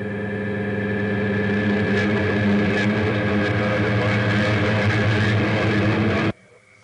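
A steady, buzzing drone with a low hum, slowly growing louder and then cutting off abruptly near the end.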